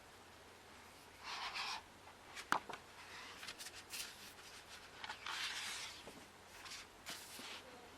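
Paper pages of a book being turned by hand: two swishes, one about a second in and a longer one past the middle, with a sharp click and a few light paper ticks between.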